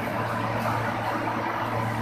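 GTAW (TIG) welding on a pipe joint: a steady electrical hum with an even hiss over it, holding constant while the arc burns.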